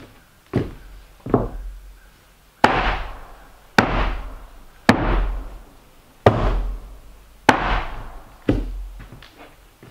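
Hammer blows on wood, eight sharp strikes about a second apart, the first two lighter and the rest heavier, each ringing out briefly.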